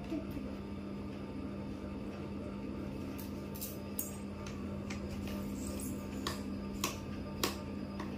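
Scissors snipping and a cardboard box being handled while the package is opened: a scattering of short sharp clicks in the second half, over a steady low hum.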